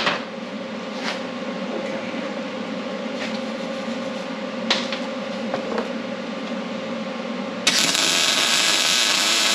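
A few sharp clicks of metal parts handled on a steel bench over a steady hum. About seven and a half seconds in, a wire-feed welder's arc strikes and crackles loudly and evenly for about two seconds, welding a steel bolt onto a chain link.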